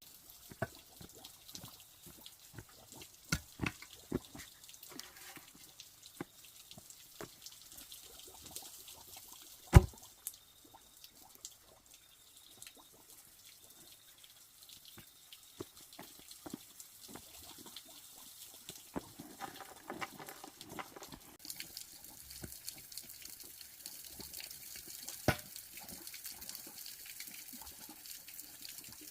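Water dripping and running, with scattered clicks and knocks of handling. One sharp, loud knock comes about ten seconds in and another about twenty-five seconds in.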